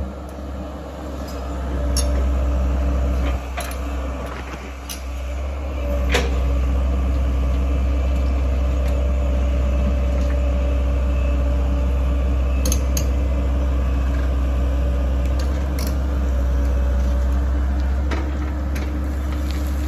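Komatsu tracked excavator's diesel engine running with a steady low rumble and hum as it digs into concrete and rock rubble, getting louder about six seconds in. Scattered sharp clanks and knocks of broken concrete and stone striking the bucket and each other.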